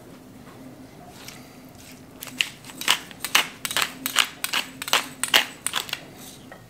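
Hand-twisted pepper grinder crunching peppercorns, a quick run of dry grinding clicks about three a second, starting about two seconds in and stopping near the end.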